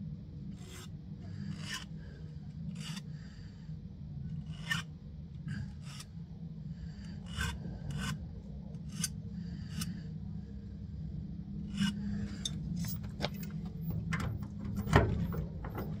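Hand file rasping on a key blank in separate strokes, roughly one a second, while a key is cut by impressioning. Near the end the strokes come faster, and one louder knock stands out.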